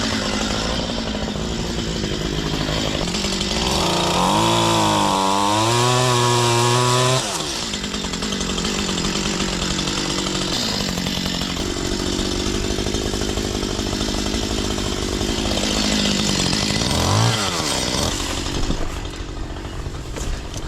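A boat's motor running steadily, its pitch wobbling up and down for a few seconds and rising briefly near the end.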